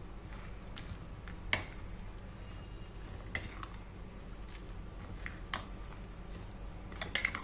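A metal spoon stirring a thick mixture of curd, makhana and grated apple in a glass bowl, quiet apart from a few faint clicks of the spoon against the glass.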